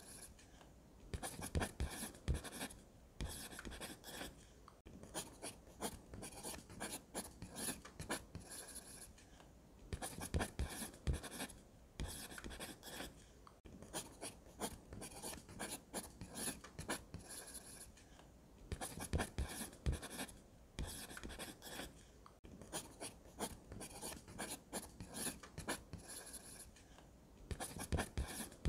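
Graphite pencil scratching on sketchbook paper in runs of quick strokes broken by brief pauses, ruling straight lines along a plastic ruler.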